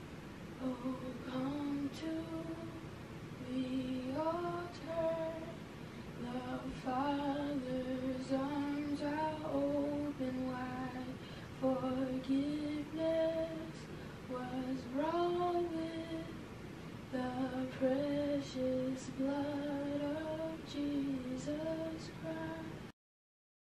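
A woman singing a slow melody with no accompaniment, holding long notes in short phrases with brief pauses between them. The singing cuts off abruptly near the end.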